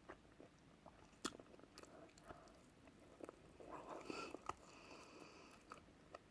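Faint chewing and biting while eating, with scattered small clicks and one sharper click about a second in.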